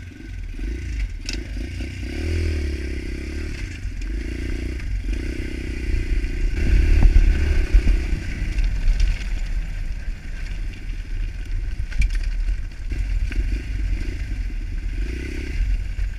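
Pit bike engine running as the bike rides over a rough frozen dirt trail, rising to its loudest about seven seconds in, with clattering and rattling from the bike over the bumps.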